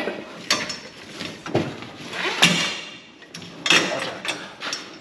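Irregular metallic clunks and rattles, several sharp ones about a second apart, from a ratchet strap and rear suspension parts being handled under a drag car.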